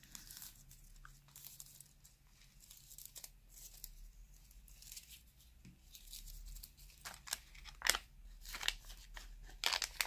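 Thin holographic nail transfer foils crinkling and rustling in the hands as they are unrolled and sorted. The sound comes as faint scattered crackles that get louder and more frequent near the end.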